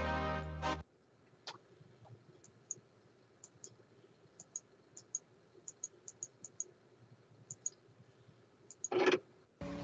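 Music from a computer stops about a second in. Then comes a run of faint, sharp computer mouse clicks, many in quick pairs, as tracks are picked in a media player. A brief louder noise comes near the end, just before music starts again.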